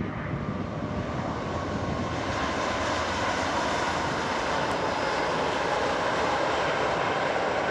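Boeing 787 Dreamliner's Rolls-Royce Trent 1000 jet engines running as the airliner rolls along the runway, a steady jet noise that grows louder and brighter about two seconds in as it passes close by.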